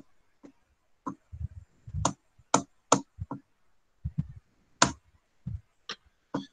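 About a dozen sharp clicks and light knocks close to the microphone, irregularly spaced, some with a dull low thump, the sound of small objects being handled on a desk.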